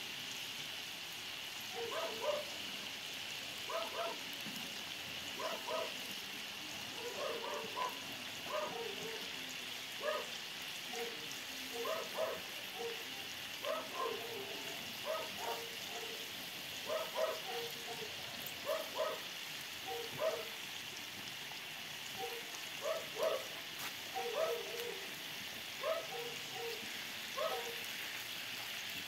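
Goose meat and potatoes sizzling steadily in a saj over a fire. Over it, an animal gives short calls, singly or in pairs, every second or two throughout.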